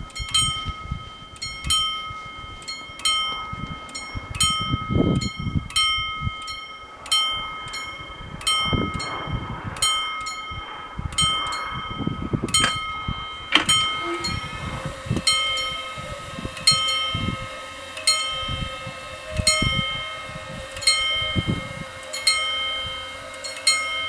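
The two electromechanical bells of an Italian level crossing ringing, about one and a half clear ringing strikes a second, each ringing out. About two-thirds of the way through, a steady low hum joins them as the barrier arms begin to lower.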